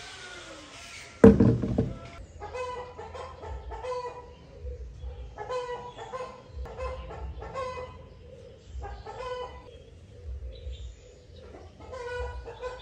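A single loud thump about a second in, then a hen clucking over and over in short bursts.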